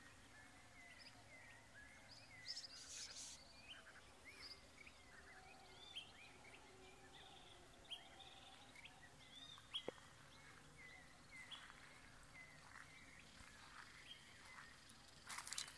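Faint dawn chorus of several birds: many short, arching chirps, scattered and overlapping. Near the end comes a brief, louder rustling crunch.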